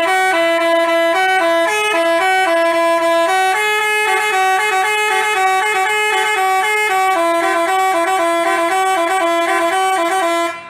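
Basuri telolet bus horn playing a quick melody of stepped, steady notes, stopping abruptly near the end.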